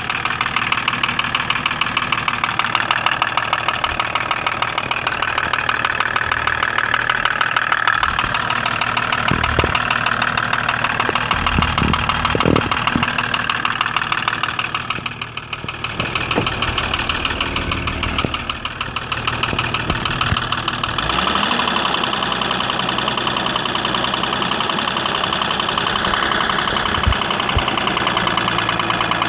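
BMW E34's M51 straight-six turbodiesel running with a fast, regular knock, which the owner takes to be a worn piston pin. The sound drops briefly twice around the middle.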